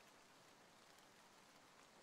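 Faint, steady rain with fine scattered drops.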